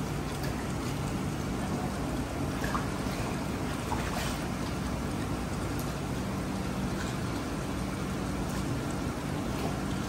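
Steady running-water noise in a sea-turtle pool, under a constant low hum, with a few light clicks and splashes about three and four seconds in.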